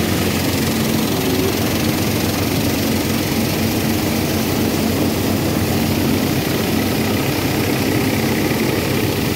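National threshing machine running steadily while bundles of dry cut crop are fed into it: a loud, even mechanical drone with a low hum.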